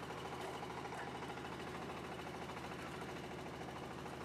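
An engine running steadily, with an even low drone and a fast regular pulse.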